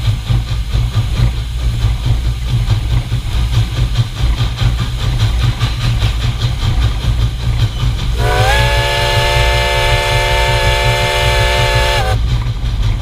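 Steam whistle of Reading & Northern 4-6-2 locomotive No. 425 blowing one long chord of several notes, starting about eight seconds in with a short rise in pitch and cutting off near the end, over the steady low rumble of the locomotive running.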